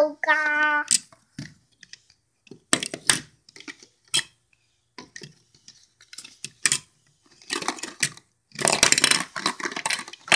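Plastic Lego Duplo bricks clicking and knocking as they are handled, in scattered single clicks at first, then a dense rattling clatter over the last two seconds or so.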